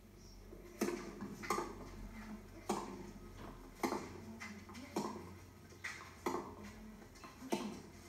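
Tennis rackets striking the ball in a baseline rally, about eight sharp hits spaced roughly a second apart, heard through a television's speaker.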